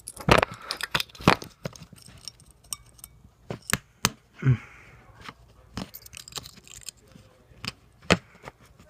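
Irregular sharp clicks and clinks of small metal parts and a hand tool as a laptop hard drive's read head assembly is pried and pulled out of its case.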